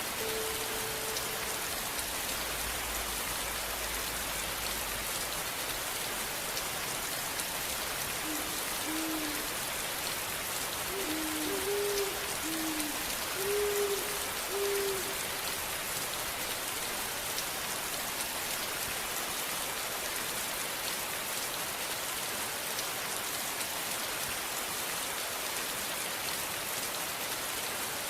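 Steady rain falling on a surface. About eight seconds in comes a run of short, low hooting notes, several in pairs.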